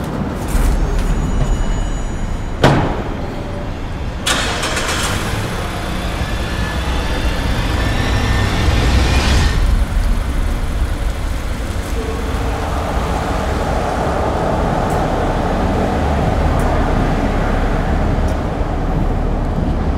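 A car door shuts with a single knock about two and a half seconds in. About four seconds in, the car's engine is started and keeps running with a steady low rumble.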